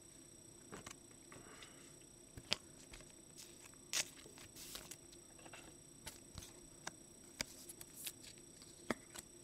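Trading cards being handled and slid into rigid clear plastic top loaders: scattered light plastic clicks and taps, the sharpest about two and a half and four seconds in and again near the end.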